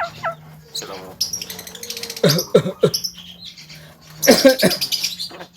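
Javan myna giving a run of varied calls and harsh chatter: scratchy bursts, clicks and short whistled notes. There are three quick falling notes about two seconds in, and a loud harsh burst a little after four seconds.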